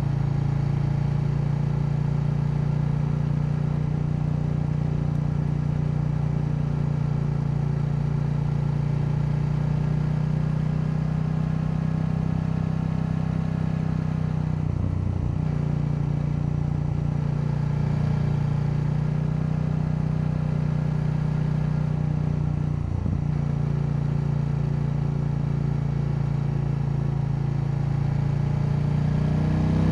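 KTM 890 Duke's parallel-twin engine running at a steady cruise, its note dipping briefly twice in the middle, then rising in pitch as the bike accelerates at the end.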